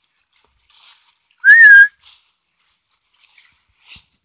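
A person's short, loud whistle about a second and a half in: one note that rises and then levels off. Faint rustling of footsteps on dry fallen leaves.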